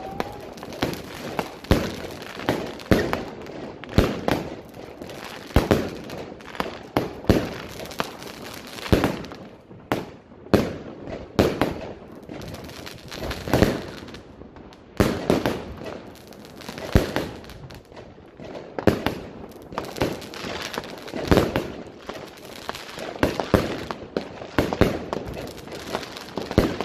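Small 'China Red' consumer firework cake firing shot after shot, with a sharp bang roughly every second.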